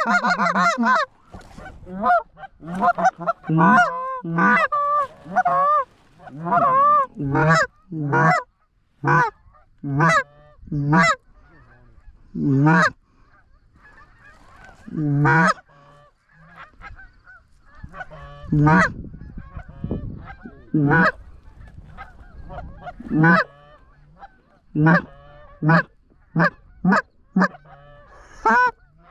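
Goose honks and clucks. A dense run of fast calling fills the first second, then single honks follow one after another, every half second to a second and a half.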